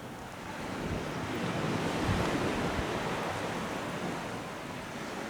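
Sea surf breaking and washing on the shore, a steady rush that swells about a second in and eases off near the end, with wind on the microphone.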